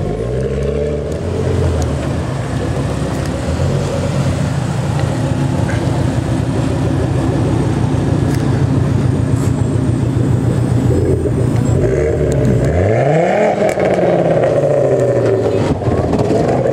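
Custom Ford Galaxy's engine and exhaust running steadily as the car pulls away, then one sharp rev that rises and falls about thirteen seconds in. Near the end come a few sharp pops as the exhaust flame kit shoots flames.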